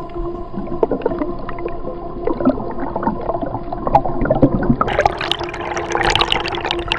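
Underwater sound picked up by an action camera: a steady hum with several overtones and scattered crackling clicks, turning into louder splashing and bubbling about five seconds in as the camera rises to the surface.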